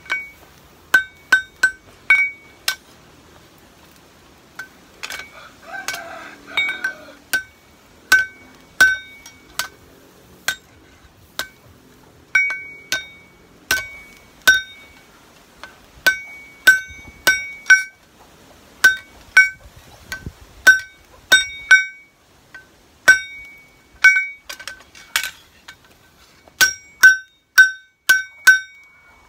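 Hand hammer forging a hot steel kitchen-knife blade on a steel anvil, each blow ringing with a clear metallic tone. The blows come irregularly, often in quick runs of two to four.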